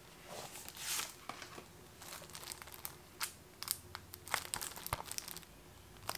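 Plastic shrink wrap on a disc case crinkling as the case is handled and turned over in the hands. Scattered small clicks and crackles, with a louder rustle about a second in.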